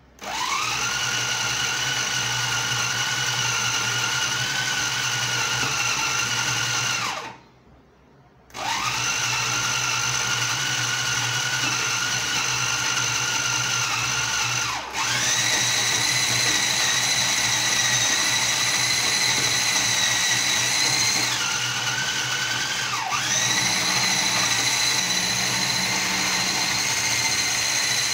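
Vitamax VM 502 food processor's motor running with a steady whine as its blade minces raw beef. It switches on, stops about seven seconds in, starts again, and rises to a higher pitch about halfway through, dipping briefly and rising again near the end.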